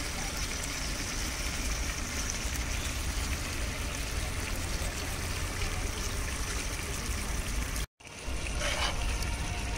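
Fish pieces frying in masala in a large aluminium pot, a steady sizzling hiss over a low rumble. After a short break near the end, a steel ladle scrapes once through the pot.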